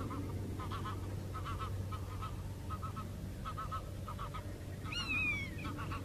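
Wetland birds calling: short notes in quick clusters, repeated every half second or so, with one louder downward-sliding whistled call about five seconds in, over a steady low hum.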